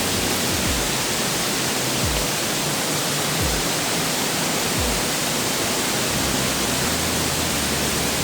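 Rain-swollen waterfall plunging into a deep cave pit: a steady, full rush of falling water.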